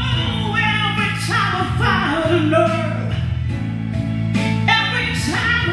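Live slow soul ballad played through a PA: singing with held, wavering notes over sustained keyboard chords.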